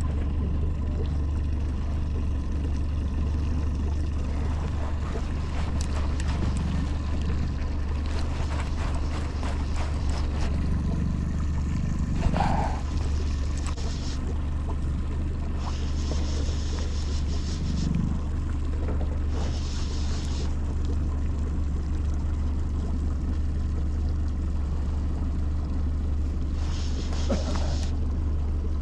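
A fishing boat's outboard motor running steadily at low speed, a constant low hum. A short sharp knock comes about twelve seconds in, and a few brief hisses come later.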